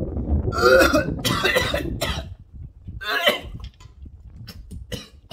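A man gagging and coughing as he tries to eat a cooked snail: harsh retching coughs in the first two seconds, then another about three seconds in.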